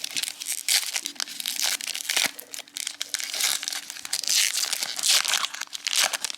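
Foil Pokémon booster pack wrapper crinkling and crackling as it is handled and opened, with a close run of small rustles and clicks that swells louder in patches.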